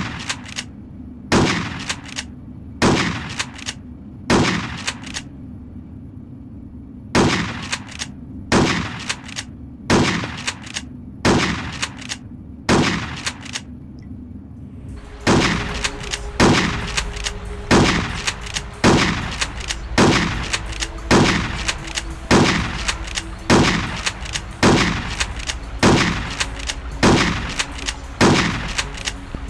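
Mossberg 500AT pump-action shotgun firing shot after shot, each blast followed by a short ringing tail. The shots come about one every second and a half, with a pause of about two seconds early on. From about halfway the shots come a little faster, about one a second, over a steady low hum.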